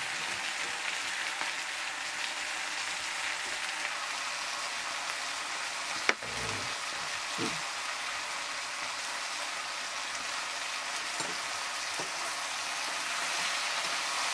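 Food frying in hot oil in a pan, a steady sizzle, with one sharp knock about six seconds in.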